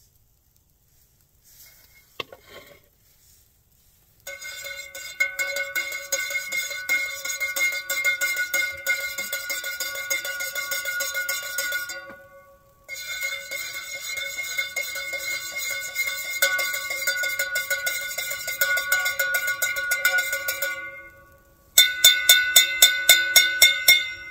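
A metal spoon stirring coffee in a metal cup, clinking rapidly against the inside so the cup rings, with a short pause partway through. Near the end the spoon is tapped sharply on the cup about five times a second, ringing the "coffee bell".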